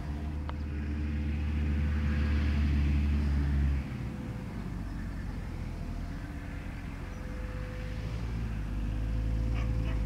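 New Holland tractor's diesel engine running steadily under load while pulling a Kverneland plough through the soil. The low drone drops abruptly a little under four seconds in, then grows louder again near the end as the tractor comes closer.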